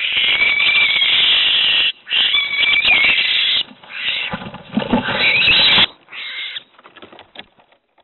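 Barn owl giving long, harsh screeches in defence while a tawny owl attacks it in a nest box: three calls of one and a half to two seconds each, then a short one about six seconds in, with scuffling and scratching of claws on wood. A few faint scratches follow, then quiet for the last half second.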